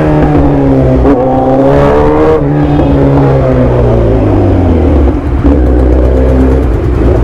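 Kawasaki Z900 inline-four engine through an aftermarket exhaust, revving up hard, with a quick drop in pitch at a gear change about two and a half seconds in. The revs then fall away and settle lower as the rider rolls off the throttle.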